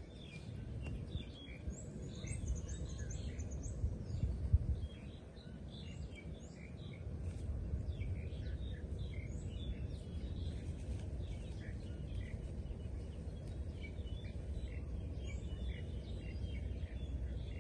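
Many birds chirping in short, high calls over a low, steady rumble.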